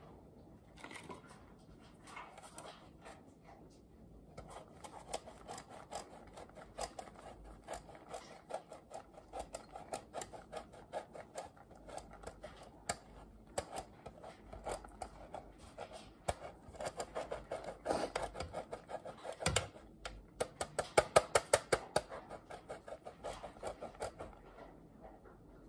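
A block of cheese being grated by hand on the coarse side of a grater: a long run of rapid rasping strokes, louder for a few seconds late on.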